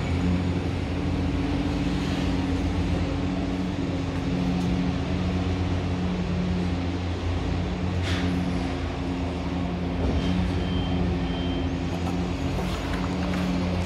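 An engine running steadily at an even low pitch, with a brief hiss about eight seconds in and a few faint short beeps a couple of seconds later.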